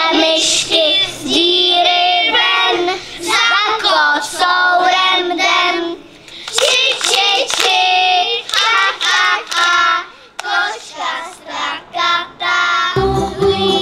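A group of young children singing a song together into stage microphones, with a few sharp hand claps near the end. Just before the end it switches abruptly to music with a deep bass.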